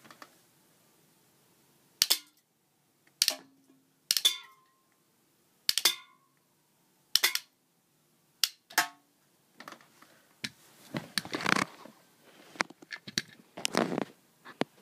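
Rubber bands fired from a Snapshot rubber band gun snapping and striking empty aluminium soda cans, knocking them over: about seven sharp smacks over some seven seconds, several with a brief metallic ring. After that comes a stretch of rustling and knocking.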